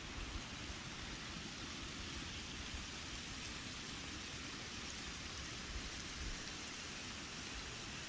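Shallow river rushing over a stony bed and spilling over a low weir: a steady hiss of running water.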